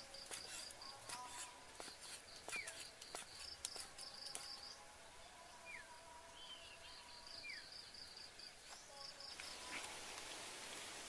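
Cleaver chopping pig intestines on a wooden cutting board: a string of sharp knocks for the first four seconds or so. An insect chirps in rapid pulsed trills that come and go.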